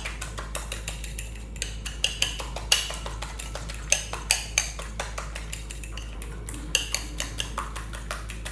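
A fork whisking egg batter in a glass bowl, its tines clicking against the glass in quick, uneven strokes.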